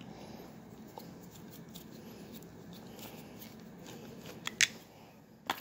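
Faint clicks and light scraping of a wire's fork terminal and lead being handled at a transmitter's screw terminal block, with a few sharper clicks near the end.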